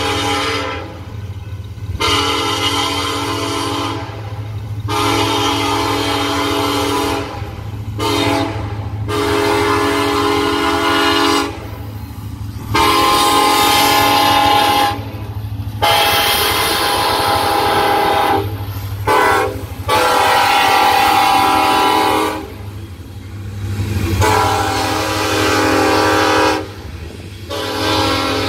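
Diesel locomotive air horn sounding a long series of blasts for a grade crossing, mostly long with a few short ones, as a chord of several steady tones. Under it runs the steady low rumble of the loaded tank train.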